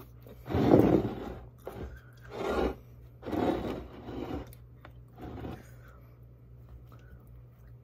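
A fork scraping on a plate and digging into a chimichanga, a run of scraping and crunching sounds, loudest about a second in and dying away after about five seconds.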